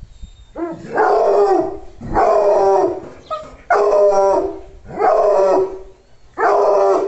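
American Foxhound baying: five long, loud bays, each about a second, coming roughly every second and a half.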